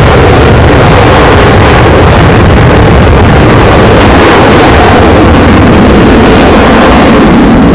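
Loud, steady jet engine noise from Black Eagles T-50B Golden Eagle display jets flying over the airfield.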